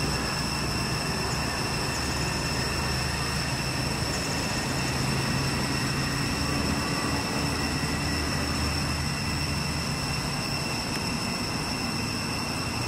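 Steady outdoor background noise: a low rumble under a steady high-pitched whine, unchanging throughout.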